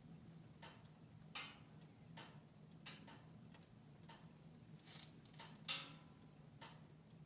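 Wood fire crackling in a stove: sharp, irregular pops and snaps, the loudest about two thirds of the way through, over a faint steady low hum.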